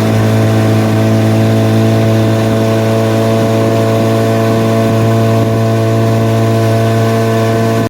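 Boat engine running loud and steady at constant speed, then cutting off suddenly at the end.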